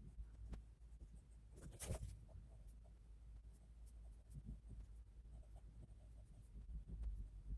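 Faint scratching and small taps of a pen writing on paper, with one louder brushing stroke about two seconds in.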